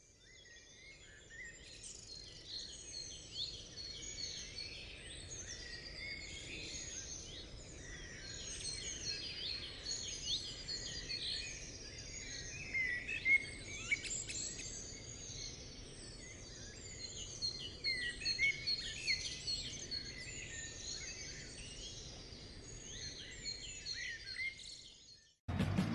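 Many birds chirping and singing over one another in a dense chorus, fading in at the start and cutting off suddenly just before the end.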